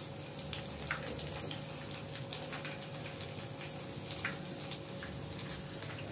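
Battered cauliflower pakoras deep-frying in hot oil in a wok: a steady sizzle with scattered pops and crackles.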